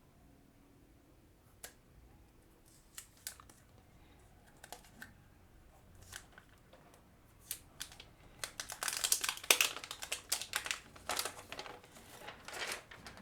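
A new smartphone being handled and unwrapped: scattered light clicks and taps, then from about eight seconds in a few seconds of dense crinkling, like protective plastic film being peeled and crumpled.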